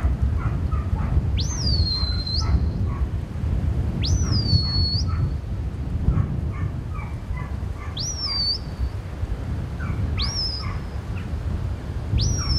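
A shepherd's whistle giving commands to a working sheepdog: five sharp whistles two to four seconds apart, each sweeping quickly up and then holding a steady high note, over a low rumble.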